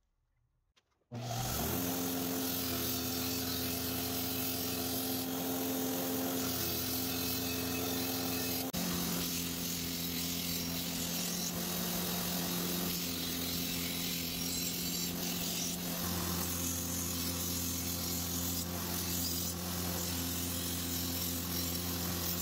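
Belt grinder running steadily, its abrasive belt grinding the steel of a katana blade: a constant motor hum under a dense grinding hiss. It comes in abruptly about a second in.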